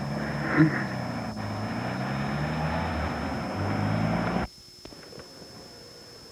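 An engine running steadily, its pitch shifting slightly, with a brief loud knock about half a second in; the sound cuts off abruptly about four and a half seconds in, where the recording breaks.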